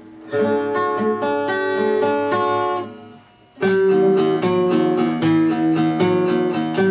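Acoustic guitar strumming chords in a song's instrumental intro; the playing breaks off for about half a second near three seconds in, then carries on.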